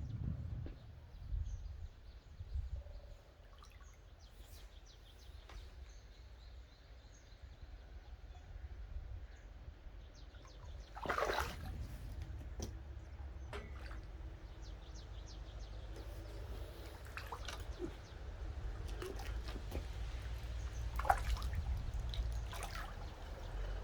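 Water splashing and dripping at the surface, with scattered small clicks over a low steady rumble; two louder splashes, one near the middle and one near the end.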